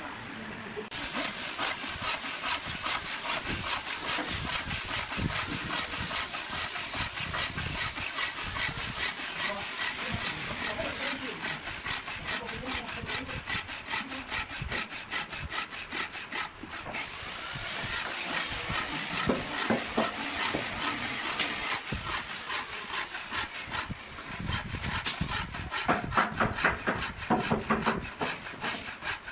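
Wood being cut with a hand saw in rapid, steady back-and-forth strokes. The sawing breaks off briefly about halfway through, then goes on.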